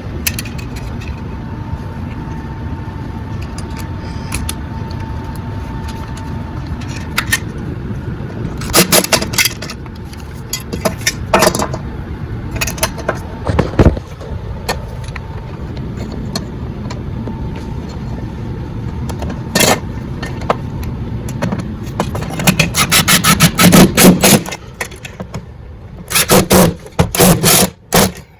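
Scraping, clicks and knocks of hardware being handled during the board mounting, over a steady low hum. The clatter is busiest about three-quarters of the way through and again near the end.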